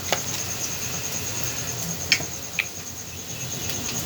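Chopped onions sizzling in hot oil in a pressure cooker, frying toward golden brown. Two light clicks come a little after two seconds in, and a high, fast-pulsing tone runs steadily behind.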